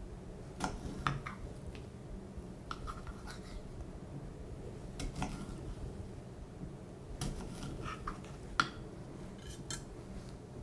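Kitchen knife slicing a pear on a small cutting board: scattered light clicks and knocks of the blade on the board, the sharpest one about three-quarters of the way through.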